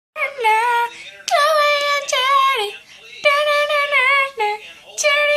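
A girl singing unaccompanied in a high voice: several short phrases of held notes with a slight wobble, broken by brief pauses.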